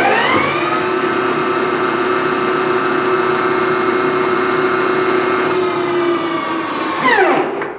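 Grizzly G0824 gear-head lathe spindle coming up to its top speed of 2000 RPM in the first second or so, then running steadily with a hum and gear-train whine, and winding down quickly to a stop near the end. The owner judges the running noise well within an acceptable range.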